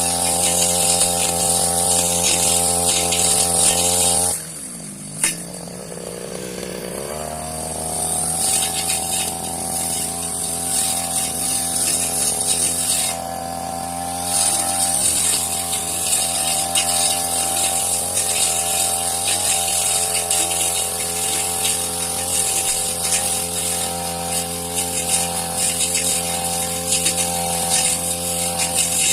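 Petrol brush cutter engine running at high speed while cutting grass. About four seconds in it drops to a lower idle, with a sharp click about a second later, then revs back up with a rising pitch and runs steadily again.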